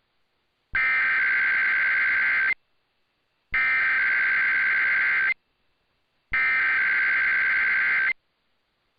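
Emergency Alert System SAME header: three identical bursts of digital data tones, each just under two seconds long and about a second apart, broadcast over AM radio to open an EAS required monthly test.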